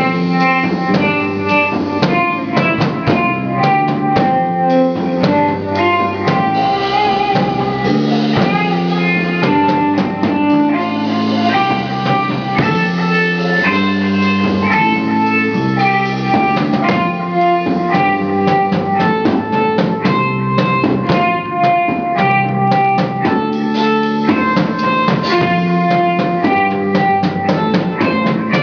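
Stoner rock band playing live: an electric guitar carries a melodic lead line of held notes over bass guitar and a drum kit keeping a steady beat.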